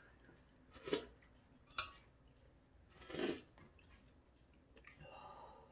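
Chewing udon noodles, with two sharp clicks about one and two seconds in and a longer wet mouth sound around three seconds in.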